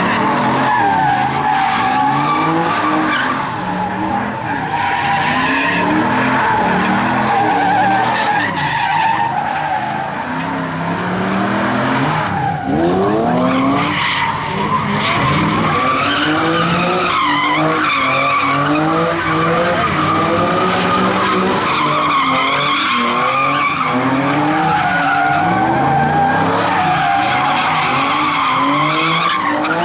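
A vehicle doing donuts: its tires squeal without letup while the engine revs rise and fall over and over.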